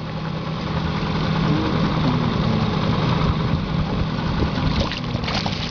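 A fishing boat's motor idling steadily with a low, even hum.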